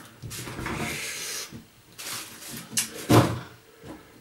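Household handling noises: rustling, with a sharp knock about three seconds in.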